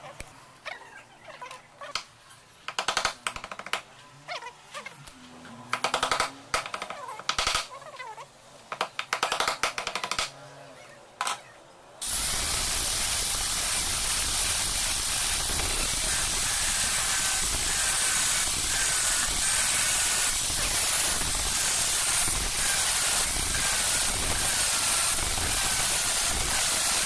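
Scattered short knocks and scrapes, then about halfway through an angle grinder with a thin cutting disc cuts in suddenly, cutting through a small steel plate with a steady, loud grinding hiss that carries on to the end.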